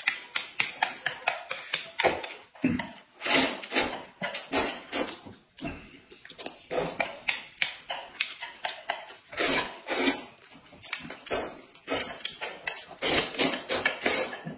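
Close-up eating sounds: corn noodles slurped and food chewed in quick, irregular bursts, with chopsticks scraping and clicking against china plates.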